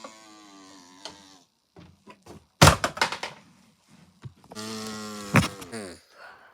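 A person's exaggerated sneezing fit, twice: each time a long drawn-out "ahh" wind-up is followed by a sharp, loud burst. The first burst comes about two and a half seconds in and the second near the end, with a few small knocks and thunks between them.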